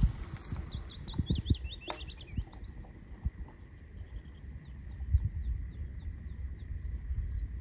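A songbird singing two quick runs of short, repeated chirping notes, the second fainter, over low gusting wind rumble on the microphone. A single sharp click about two seconds in.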